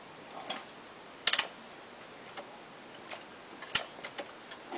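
Kick-starter of a 2001 Yamaha WR426 four-stroke dirt bike being worked: a handful of short, sharp clicks and clacks, with the engine not yet firing.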